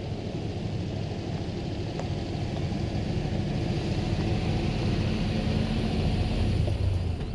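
Range Rover Classic's V8 engine running as the vehicle drives past, growing louder as it approaches and pulls closer, loudest about six and a half seconds in, then dropping off near the end.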